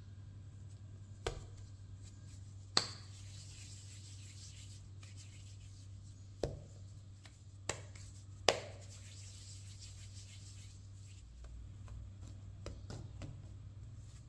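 Hands shaping pieces of bread dough into balls on a floured countertop: soft rubbing and handling, with five sharp knocks in the first nine seconds as dough and hands meet the counter, over a low steady hum.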